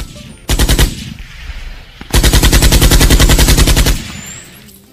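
Automatic gunfire from a mobile shooting game: a short burst, then a longer burst of about two seconds at around ten shots a second.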